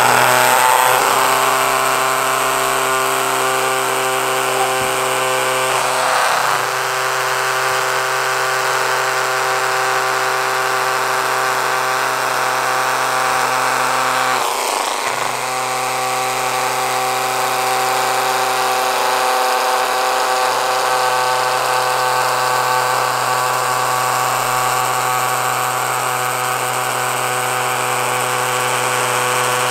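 Small DC motor from a toy car, with an eccentric weight on its shaft sized just right, buzzing steadily and shaking a 3D-printed drawing platform that stands on felt-tip pen legs on paper. The buzz dips briefly a few times, about a fifth and half way through.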